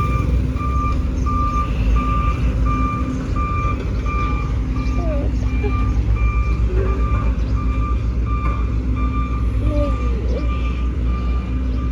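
Bulldozer's diesel engine running steadily under load, with a reversing alarm beeping over it in an even, repeated beep-beep.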